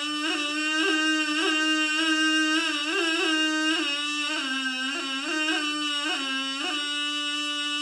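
Saz sırnay, a small Karakalpak vessel flute, playing a melody that mostly holds one note, broken by many quick upward flicks and a few short dips lower, around the middle of the passage.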